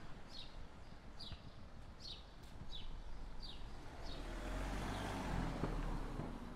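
A small bird giving short, falling chirps over and over, roughly one every two-thirds of a second, through the first half. About four seconds in, a motor vehicle passes, its rumble swelling and then fading near the end.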